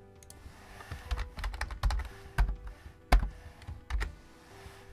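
Typing on a computer keyboard: about a dozen quick, uneven keystrokes that start about a second in and stop a little after four seconds.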